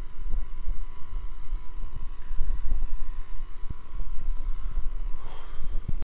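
Wind buffeting the microphone in a snowstorm: a steady, uneven low rumble with a faint steady high tone above it.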